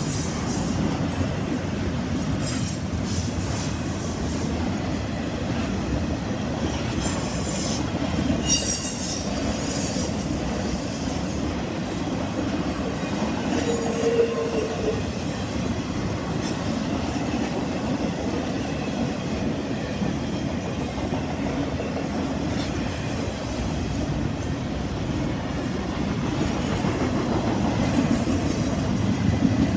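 Intermodal freight train's double-stack well cars rolling past: a steady rumble of wheels on rail, with brief high wheel squeals a couple of times in the first ten seconds.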